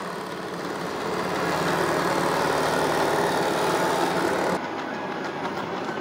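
Shark AV2501S robot vacuum running on carpet, a steady mechanical hum of its motor and spinning brushes, dropping a little quieter about four and a half seconds in.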